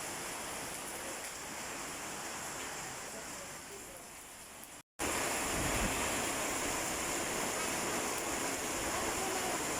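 Steady rain falling, an even hiss. It cuts out for a moment about five seconds in and comes back louder.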